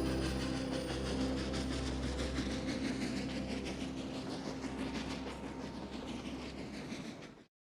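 Music fades out over the first couple of seconds, leaving a moving train: a steady rumble with a rhythmic clickety-clack of wheels over rail joints that slowly fades and then cuts off suddenly near the end.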